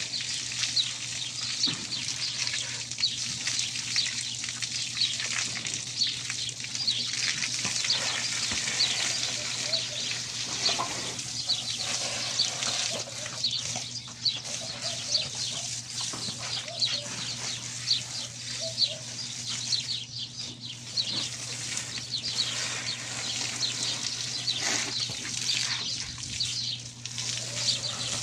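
Water from a garden hose spraying and splashing over a horse's wet coat, a steady hiss, with small birds chirping over it again and again. A low steady hum runs underneath.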